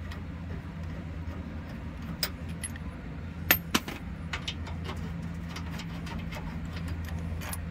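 Metal sway bar link hardware clinking as it is handled by hand: a few sharp, separate clinks, the loudest two close together about three and a half seconds in, over a steady low hum.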